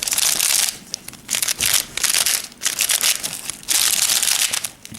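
X-Man Pyraminx being turned by hand in short bursts of scratchy plastic-on-plastic noise. The factory lube has dried out, which gives the turning a sandy feel.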